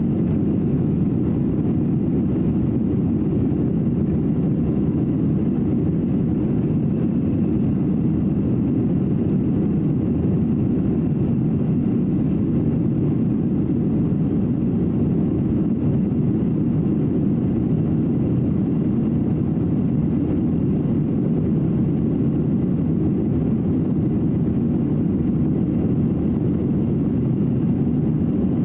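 Steady cabin noise inside a Boeing 737-900 in flight: the low, even drone of its CFM56 jet engines and the airflow, with a faint steady high whine.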